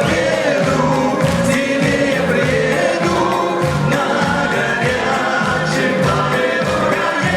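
Live band playing an old Soviet wartime song with many voices singing together, the audience singing along over a steady beat.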